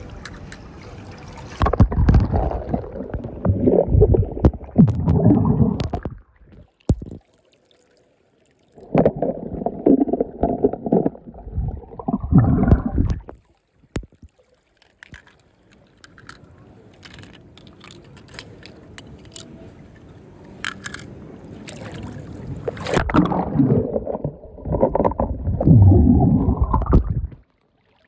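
Water sloshing and gurgling in three long bursts, each lasting four to five seconds, with quieter trickling between them.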